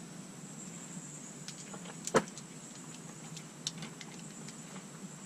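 A few light clicks and one sharp knock about two seconds in, over a steady low hum.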